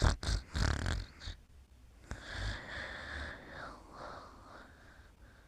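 Snoring in sleep: a few short, loud snorts in the first second, then a long wheezy breath with a whistling tone that fades away.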